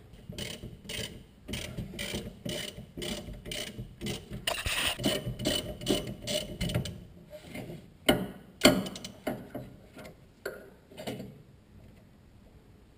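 Ratchet wrench clicking in steady strokes, about two a second, as a bolt on the rear brake caliper's parking-brake cable bracket is worked loose. Two louder knocks come about eight seconds in, then a few fainter ones.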